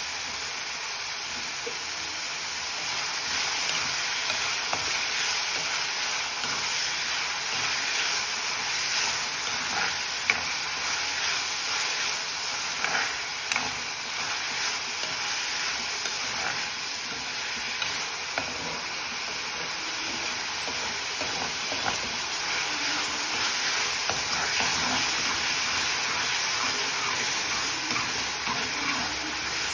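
Chopped onions and tomatoes sizzling as they fry in a metal kadai, a steady hiss. A metal spatula stirs them, clinking and scraping against the pan now and then from about a third of the way in.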